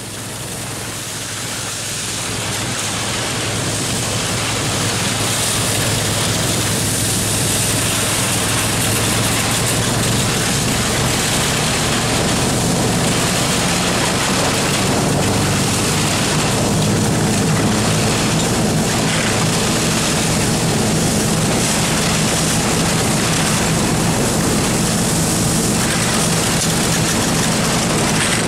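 A motorised snow vehicle's engine running steadily as it travels across snow-covered lake ice, with wind and track noise. It grows louder over the first few seconds, then holds steady.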